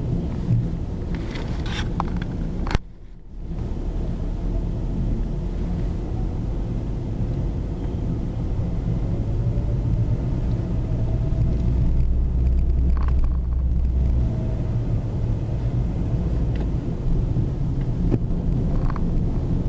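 Steady low rumble of a car's engine and tyres on a snow-covered road, heard inside the cabin. The sound cuts out briefly about three seconds in.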